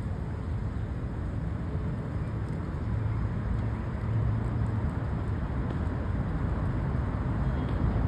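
Steady low outdoor background rumble with no clear single event, slightly louder in the second half.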